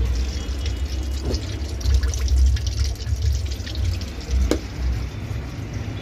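Water pouring out of a Samsung 6 kg top-load washing machine's drain hose onto the floor, with a low rumble underneath: the machine is draining freely, its drain fault fixed.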